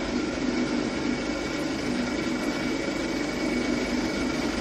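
An engine or machine running steadily at idle, with a constant hum and a thin high whine.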